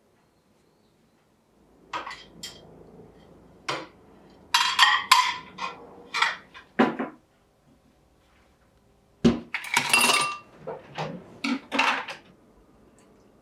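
Plates and bowls clinking and knocking as they are lifted off a stainless-steel dish drying rack and put away: a string of separate clatters with short ringing, busiest about five seconds in and again near ten seconds.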